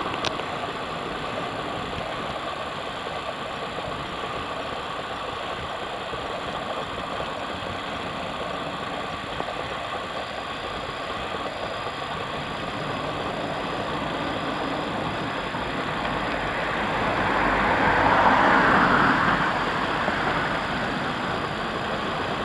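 Train running past: a steady rolling rumble that swells to its loudest about eighteen seconds in, then eases off.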